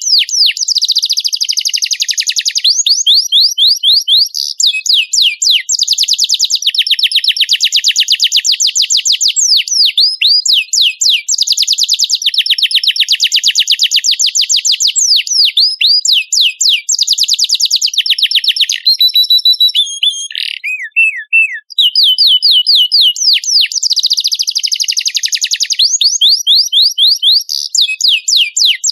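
Domestic canary in full song, a long run of fast trills and rapid repeated notes that is broken only briefly by a few scattered notes about twenty seconds in.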